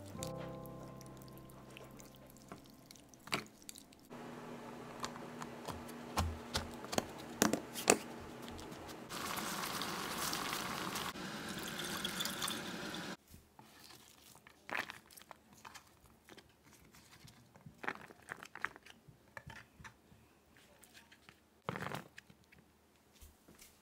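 Kitchen handling sounds: scattered clicks and knocks of things being moved and set down, with a stretch of running liquid a few seconds long about halfway through.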